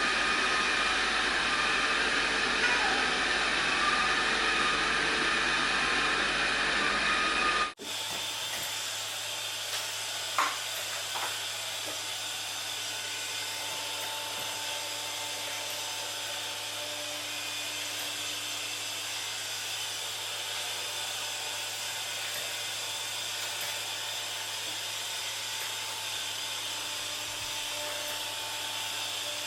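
Robot vacuum cleaners running: a louder whirring run that cuts off abruptly about eight seconds in, followed by a quieter, steady run with a low hum and a faint whine, and a couple of light clicks just after the cut.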